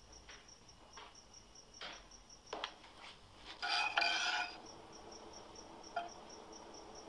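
A cricket chirping steadily in the background, about four chirps a second, under light kitchen clicks and taps. About three and a half seconds in comes the loudest sound, a brief scraping clatter of a metal utensil working in a pot.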